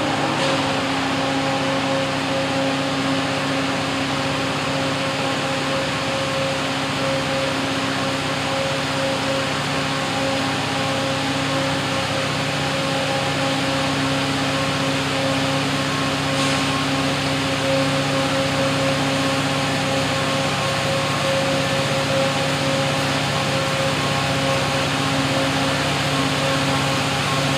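Diesel-electric locomotive working hard in notch 8 (full throttle) up a steep 3.3% grade: a steady engine drone with a constant deep hum.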